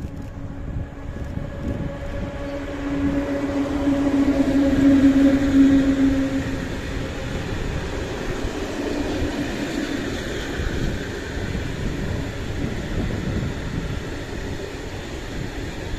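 Electric locomotive passing close by at speed, hauling a long freight train of open wagons. Its steady hum builds to a peak about five seconds in as it goes by, then gives way to the rumble and clatter of the wagons rolling past.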